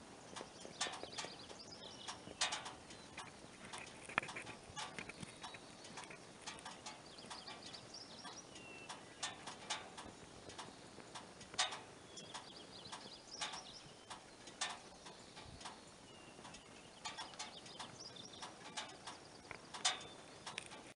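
Small birds chirping and calling, with many short sharp clicks scattered throughout.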